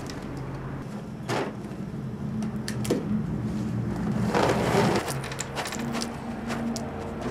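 Cardboard carton and plastic inner bag of Goldfish crackers crinkling as they are handled and opened, then crackers shaken out of the bag into a hand with a louder rustle about four seconds in. A steady low hum runs underneath.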